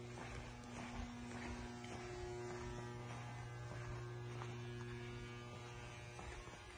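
Steady low electrical mains hum, with faint footsteps on a concrete floor.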